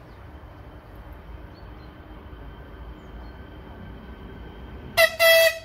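Railway horn sounding about five seconds in: a short pip, then a longer blast of about half a second, over a steady low rumble.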